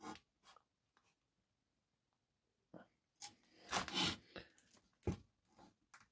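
Faint rubbing and scraping, with a sharp click about five seconds in, as a thumb works the crankshaft end of a Honda GCV135 lawnmower engine to check its end float. The owner puts the play at 2 or 3 mm, enough to send vibration through the mower's handles.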